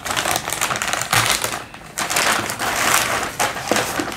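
Plastic courier mailer bag being slit with a utility knife and crinkling as it is pulled open and a hand reaches inside: dense crackling and ticking, with a brief pause just under two seconds in.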